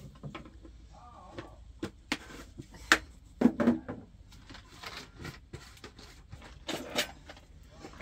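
Irregular knocks and clatter of kitchenware being handled: plastic containers, a pot and a metal teapot picked up and set down, with the loudest knocks about three seconds in and again near seven seconds.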